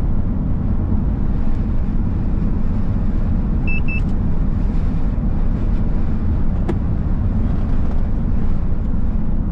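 Steady low road rumble of a vehicle driving, heard from inside the cabin. About four seconds in come two short, high electronic beeps in quick succession, and a single sharp tick follows a few seconds later.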